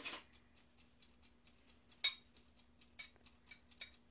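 Serving spoon clicking and scraping against a non-stick skillet and a bowl as stir fry is dished out: a string of light, irregular clicks, with two sharper knocks, one at the start and one about two seconds in.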